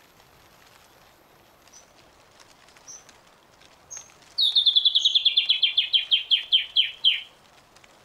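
A rainforest bird singing: a fast, loud run of about twenty notes lasting nearly three seconds, falling steadily in pitch, preceded by a few short, thin high notes.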